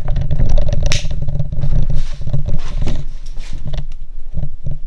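Handling noise from a video camera being lifted off its mount and moved by hand: rubbing, bumps and clicks on the microphone over a heavy low rumble that thins out about three seconds in.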